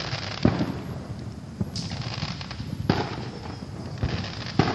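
Fireworks going off around the neighbourhood: about five sharp bangs at irregular intervals, each trailing off in a short echoing tail.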